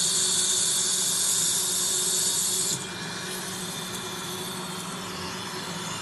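Steady high hiss from dental surgical equipment during an implant operation, which cuts off abruptly about three seconds in and leaves a fainter hiss.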